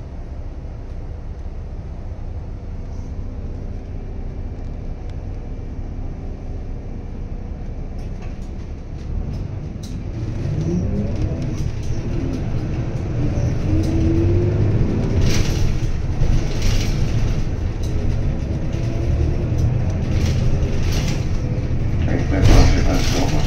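City bus engine idling under a steady low rumble, heard from inside at the front; about ten seconds in it revs up with rising pitch as the bus pulls away and runs on louder, with a few short clicks near the end.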